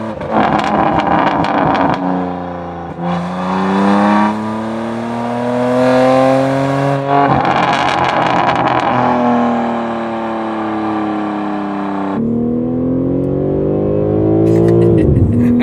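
BMW M3 Competition's twin-turbo inline-six with its aftermarket valved exhaust open, accelerating through the gears: the engine note climbs in pitch in each gear and steps down at three upshifts, with crackly patches around the shifts. Near the end the pitch dips sharply and comes back.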